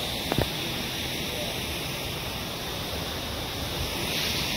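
Steady rush of a waterfall, with two brief knocks about a third of a second in.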